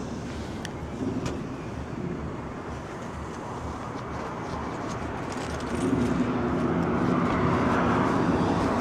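A bus engine approaching along the road, its running growing louder about six seconds in with a steady low hum as it draws near.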